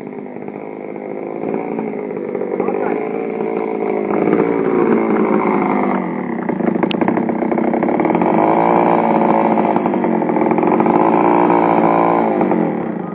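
A small two-stroke chainsaw engine fitted to a bicycle as a homemade moped motor, running and revving as the bike is ridden. It gets louder over the first few seconds, eases briefly about halfway, then holds at high revs.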